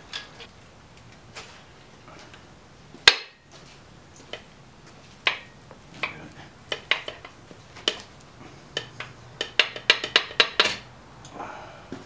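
Irregular metal clicks and clinks of a ratchet, bolts and a main bearing cap being worked off an LS1 V8 engine block. There is one sharp knock about three seconds in and a quick run of clinks near the end.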